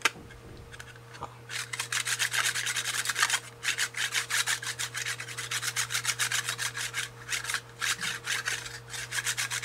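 A magnet rubbed quickly back and forth across a clear plastic CD case, making a rapid scraping rhythm of about five or six strokes a second. It starts about a second and a half in and breaks off briefly once.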